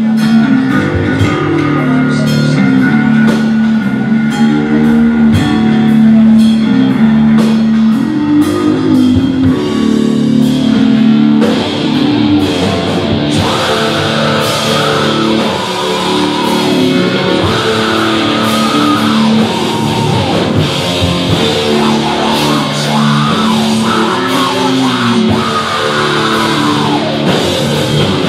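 Live rock band playing loudly: distorted electric guitars and bass over a drum kit with busy cymbals. About halfway through, a vocalist comes in singing over the band.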